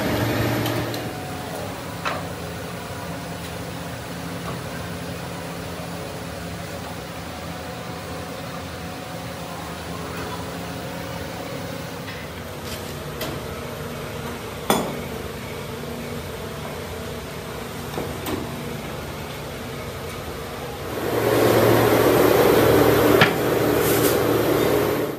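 A steady machine hum with a few scattered clicks and knocks. About three-quarters of the way through, a loud rough grinding noise begins as a brake lining is pressed against a powered abrasive machine.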